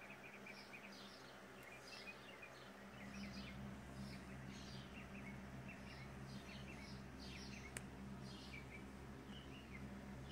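Small birds chirping in clusters of short, quick notes throughout, over a steady low hum that grows a little louder about three seconds in.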